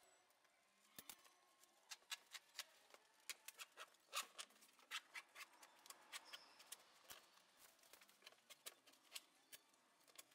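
Faint, irregular clicks and snaps, at times several a second: a FabricMate acoustic fabric panel and its frame being pulled apart and torn off the wall.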